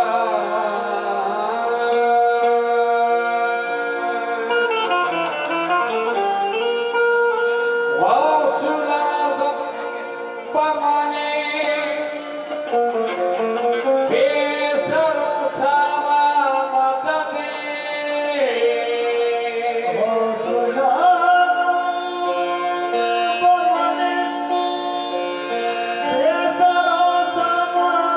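Qawwali music: a harmonium's held reed chords with a male voice singing long, bending phrases over them, and tabla drumming.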